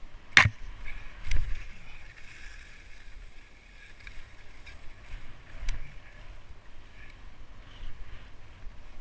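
Touring skis hissing as they slide downhill through snow, with a sharp knock about half a second in, another about a second later and a fainter one around the middle.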